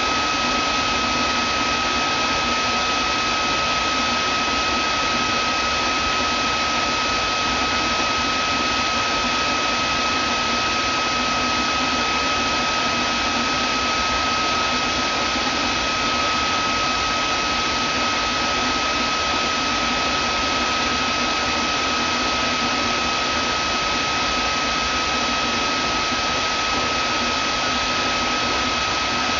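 Vacuum cleaner running steadily: an unchanging rush of air noise with a high, steady motor whine.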